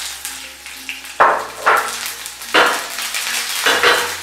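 Tadka: green chillies and whole dry red chillies sizzling in hot oil in a small frying pan. A steady hiss with several sudden, louder spurts of spluttering.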